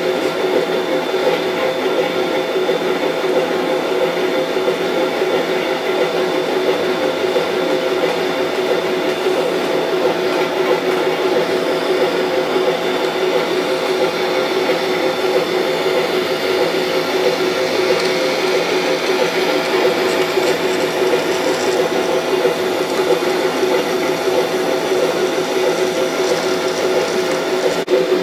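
On30 model steam locomotive running on track: its small electric motor and gears give a steady whirring hum with a few constant tones, a little brighter about two-thirds of the way in.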